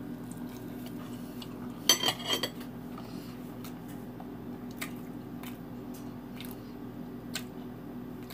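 A fork clinks against a plate in a quick cluster about two seconds in, then a few single clicks, while someone quietly chews a bite of banana-oatmeal pancake. A steady low hum sits underneath.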